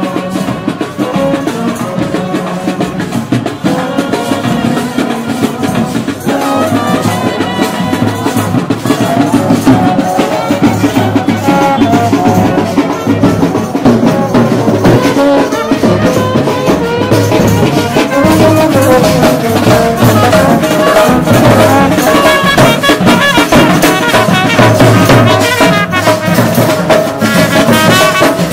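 Indian brass band playing: trumpets and horns carry the tune over snare drum, bass drum and cymbals. It grows a little louder about six seconds in.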